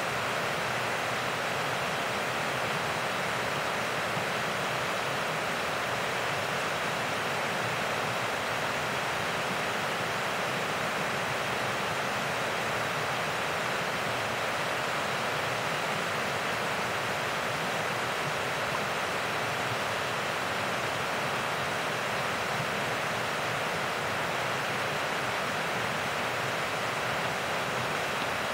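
A small stream cascading over a series of low rock ledges: a steady, unbroken rush of falling water.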